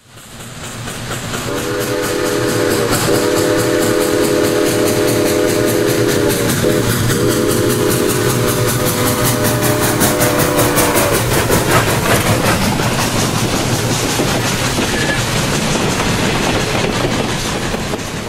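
Steam locomotive with a chime whistle sounding several notes at once. The whistle blows in three blasts, a short one followed by two long ones, over the steady noise of the train running, and the whole sound fades out near the end.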